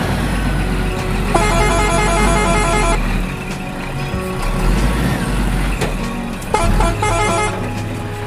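Truck engine running with a steady low rumble, with two spells of rapid horn honking, about a second and a half in and again near the end, over music.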